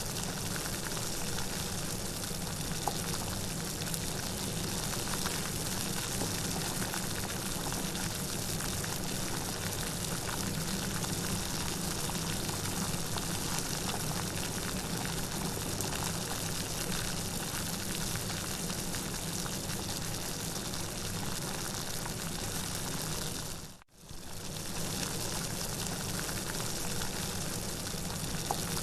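Steady, even rain. It cuts out for a split second about 24 seconds in, then resumes unchanged.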